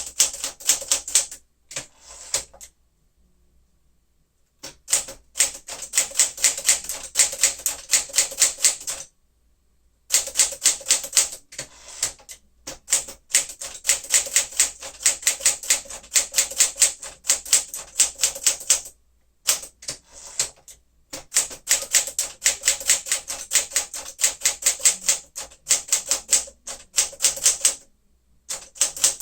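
1959 Smith-Corona Sterling manual portable typewriter being typed on: quick runs of sharp key strikes, several a second, broken by a few short pauses of a second or two.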